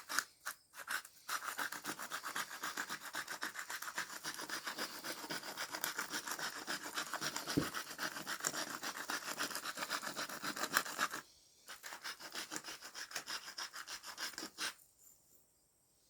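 Salt grinder being twisted to grind salt over the chops, a rapid grating crunch that runs for about ten seconds, stops briefly, then goes on for a few seconds more.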